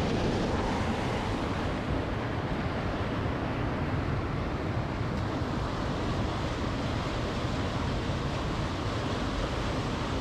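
Steady rushing of fast-flowing river water, an even hiss-and-rumble without pause.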